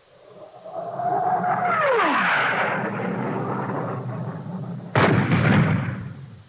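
Cartoon crash sound effect: a rising whoosh with a whistle that holds, then falls steeply, a steady rumble, and a sudden crash about five seconds in that dies away.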